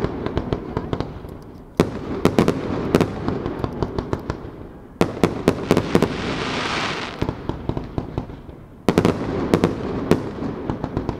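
Aerial firework shells going off overhead: three loud bangs a few seconds apart, each followed by a run of sharp crackling pops and a fading rumble. A hissing crackle swells briefly in the middle.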